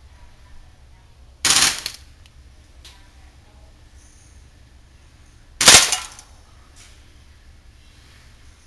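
WE SMG8 gas-blowback airsoft submachine gun firing two short full-auto bursts, each about half a second long, some four seconds apart.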